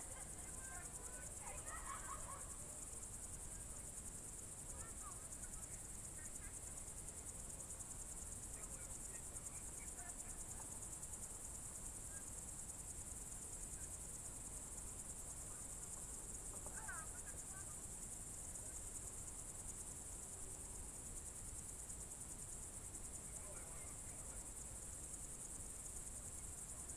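Crickets trilling in a continuous high-pitched chorus, with a few faint short chirps about two seconds in, around the middle and near the end.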